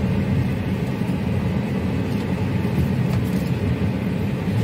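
Car engine and tyre noise heard from inside the cabin while driving slowly, a steady low rumble.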